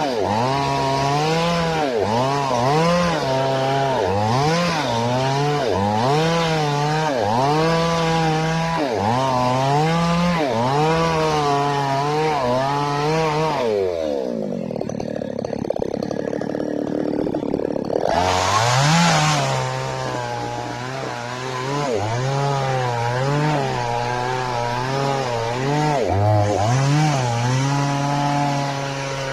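Falcon mini chainsaw engine warming up, its throttle blipped over and over so the pitch rises and falls every second or so. About halfway through the pitch sinks and it runs lower and duller for about four seconds, then revs up sharply and goes back to blipping, settling to a steadier pitch near the end.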